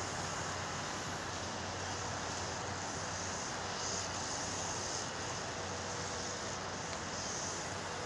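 Steady hum of distant city and freeway traffic.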